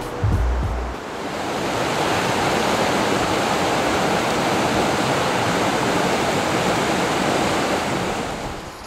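Mountain river rushing over boulders in whitewater rapids, a steady even rush of water.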